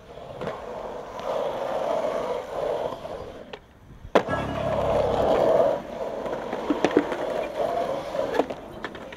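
Skateboard wheels rolling on concrete with a steady hum. About four seconds in comes one sharp clack of the board, and there are a few lighter ticks.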